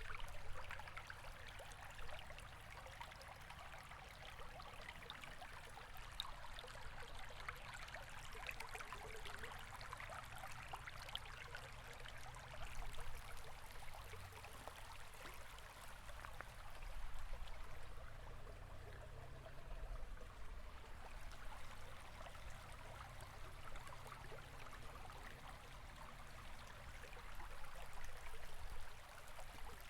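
A river or stream flowing, a steady rushing with small trickling splashes, over a low rumble.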